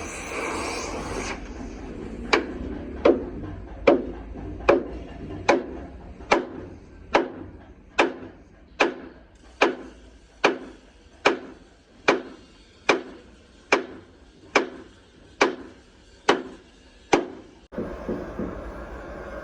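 A hammer striking at a steady, even pace, about nineteen blows a little under a second apart, stopping near the end.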